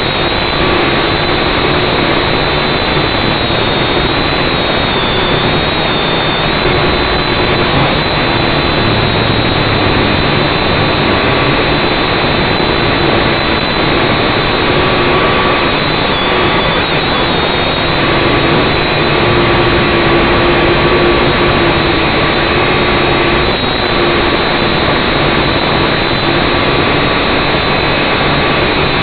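Syma X5C quadcopter's four small brushed motors and propellers buzzing loudly and steadily, heard close up through its onboard camera. A whine rides on the buzz, its pitch wavering slightly as the throttle changes.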